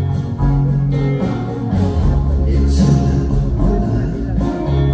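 Live band playing a slow ballad, recorded from the audience in a concert hall.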